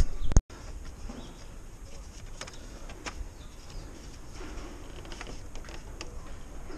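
Scattered light clicks and knocks of hands and a small hand tool working against the underside of a car. A loud knock right at the start cuts off abruptly.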